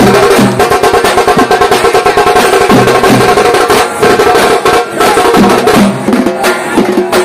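Dappu frame drums beaten in a fast, dense, loud rhythm, with held melodic notes sounding above the drumming.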